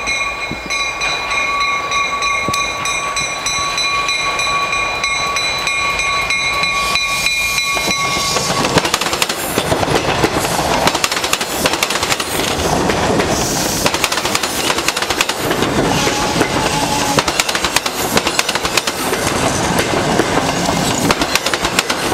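MBTA commuter train's horn sounding one long steady blast as the train approaches, cutting off about eight seconds in. Then the locomotive and bilevel coaches pass close by, with loud rail noise and the rapid clatter of wheels over the track.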